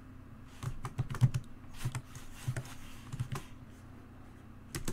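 Computer keyboard being typed on: several short runs of key taps over the first three and a half seconds, a pause, then one more sharp tap near the end, over a faint steady low hum.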